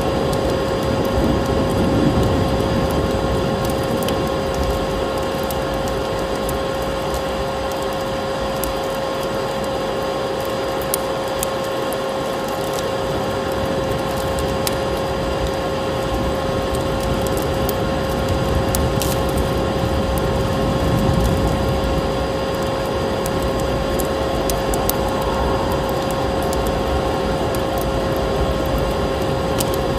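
Vacuum cleaner motor running steadily with a constant hum, mixed with the scattered pops and crackles of a wood fire burning.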